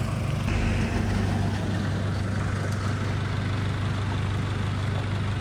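Truck engine idling steadily, an even low hum.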